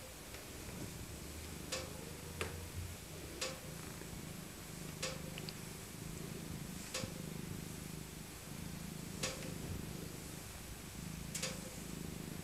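Elderly tabby cat purring contentedly while being stroked: a low, steady purr in stretches of a second or two with short breaks between breaths. A few sharp clicks come at irregular intervals over it.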